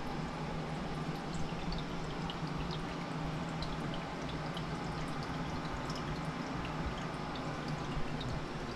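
Aquarium water trickling and dripping: scattered faint ticks of small drops over a steady low hum.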